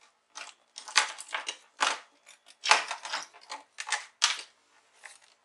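Tools being handled and set down on a workbench: an irregular string of clicks, knocks and rustles, a few a second.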